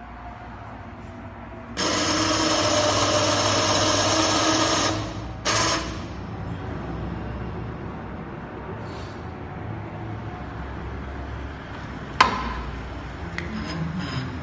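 Mini desktop injection molding machine running a cycle. Its servo-driven ball screws whir loudly for about three seconds as the mold closes, with a short burst of the same sound just after. A low hum follows, then a sharp clack and a few lighter clicks near the end.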